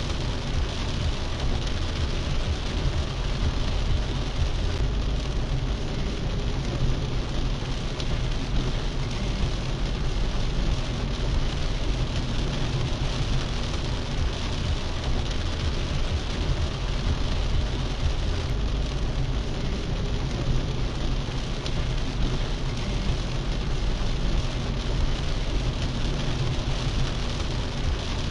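Heavy rain on a moving car, heard from inside the cabin: a steady hiss of rain on the body and windscreen over a low rumble of tyres on the wet, waterlogged road.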